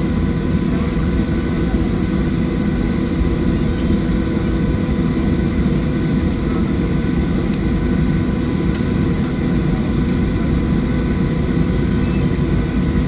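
Steady cabin hum of a parked Boeing 737-800, the air-conditioning and aircraft systems running, with a few sharp clicks in the second half.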